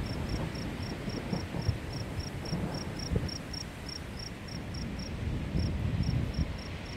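A cricket chirping steadily, about four short high chirps a second, pausing briefly about five seconds in, over a low rumble.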